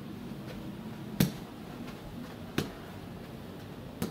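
Soccer ball being tapped and pulled back by a bare foot on carpet in a push-pull ball-control drill: three short taps about one and a half seconds apart.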